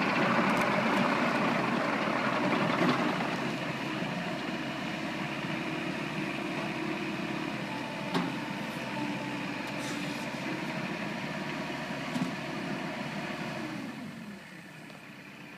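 Sumitomo SH75U excavator's diesel engine running: louder for the first few seconds, then settling to a steady lower hum. There are two short clicks in the middle, and the engine sound falls away sharply near the end.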